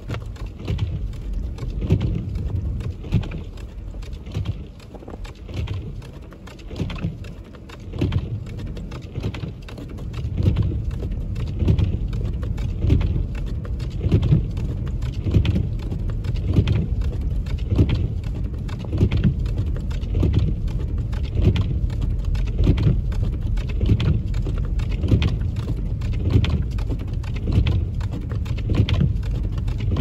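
Car cabin noise while driving on a snow-covered road: a steady low rumble of tyres and engine, with windshield wipers knocking in a regular beat about once a second. The rumble grows louder about a third of the way through.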